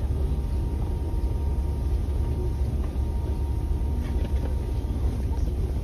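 Intercity bus engine rumbling steadily and low, heard from inside the crowded passenger cabin.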